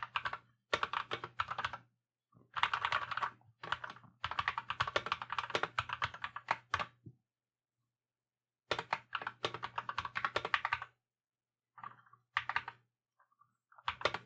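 Typing on an Akko 3061S 60% mechanical keyboard with linear Cream Yellow switches. The keystrokes come in quick runs separated by short pauses, with the longest pause about halfway through. The typing sounds very quiet.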